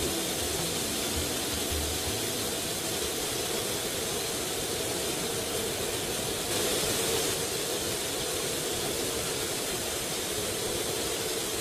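Steady rushing noise of an amphibious light-sport flying-boat trike in flight, heard from a camera mounted on its strut: wind over the microphone with the pusher engine and propeller running underneath. It grows a little louder about six seconds in.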